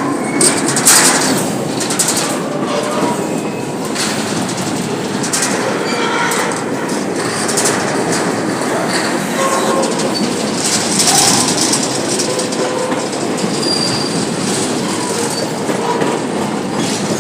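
Train wagons rolling past, wheels clacking and knocking over the rail joints, with short high-pitched wheel squeals throughout.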